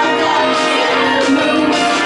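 Live pop music: a woman sings into a microphone over a loud instrumental accompaniment.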